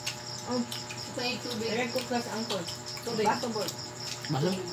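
Crickets chirping steadily in quick, even pulses, with people's voices talking over them now and then.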